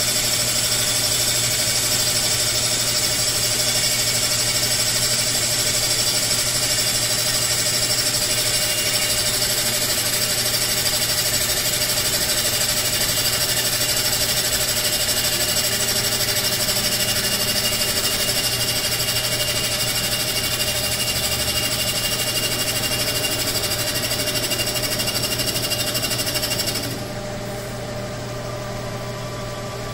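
Rottler F-65 CNC cylinder boring machine's spindle running steadily, cutting a cylinder bore in an engine block, with several high steady whines over the machine noise. About 27 s in, the sound drops to a quieter steady hum as the tool comes up out of the bore.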